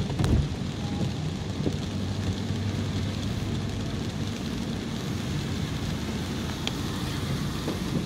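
Steady road noise heard inside a moving car's cabin on a rain-wet street: a low engine hum under the hiss of tyres on wet tarmac, with a light knock near the end.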